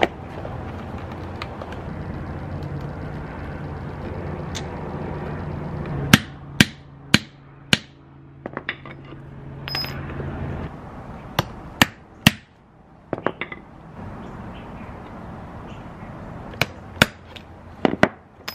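Hammer blows setting rivets through a leather strap on a leather tool pouch, rested on a brick: sharp strikes in three groups of three or four, about half a second apart. A steady low hum runs under the first half and stops a little past the middle.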